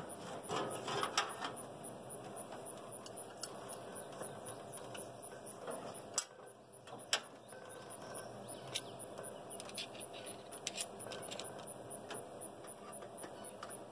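Scattered metallic clicks, taps and rattles of hands and a hand tool working on the air cleaner and flexible intake duct of a big-block V8 as they are being taken off, with a busier rattle about a second in and a few single sharp clicks later.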